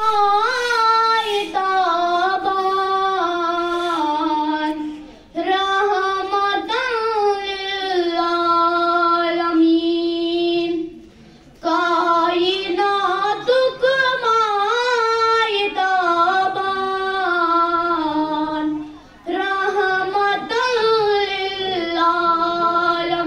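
A girl singing a naat, a devotional Urdu/Kashmiri song in praise of the Prophet, solo into a microphone with no instruments. She sings in long ornamented phrases with held notes, pausing for breath about five, eleven and nineteen seconds in.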